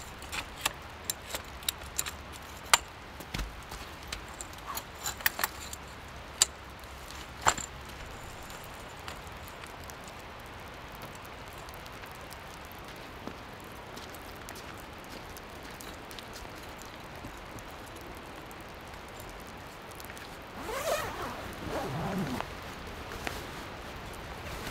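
Aluminum tent-frame poles clinking and knocking as they are fitted into their connectors, a quick string of sharp metallic clicks during the first eight seconds or so. Near the end, a heavy canvas tent bag is shifted and dragged with a rustling scrape.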